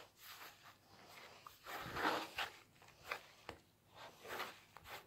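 Homemade paper-napkin slime (napkin, water, shampoo, hand soap and baking soda) being kneaded and squeezed by hand, giving soft wet squishes and rustles at irregular moments, loudest about two seconds in.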